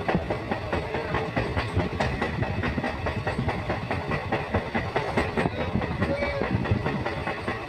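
Steady rumble and rapid rattling of a moving vehicle.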